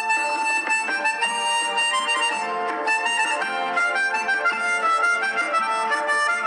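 Instrumental background music: a melody of held notes over a steady accompaniment.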